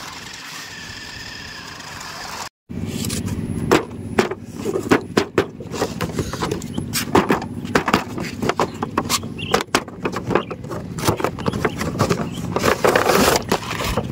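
Small electric motors of toy RC cars whining steadily. After an abrupt cut about two and a half seconds in, a cardboard toy box with a plastic film window is handled and opened: a busy run of crackles, taps and rustles.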